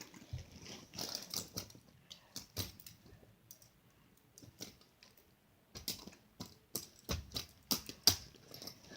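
Plastic fidget spinners being handled, with irregular clicks and knocks as they are put down and bump against one another. The loudest knock comes near the end.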